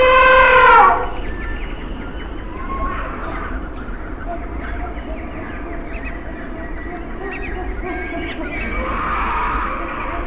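Elephant trumpeting sound effect: one loud, steady blare that falls slightly in pitch and cuts off about a second in. After it comes a much quieter background bed.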